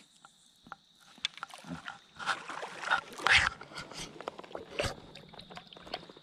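Shallow river water splashing and sloshing around a wading angler's legs and hands as he releases a bass. The sound comes in a few short, uneven bursts, the loudest about three seconds in.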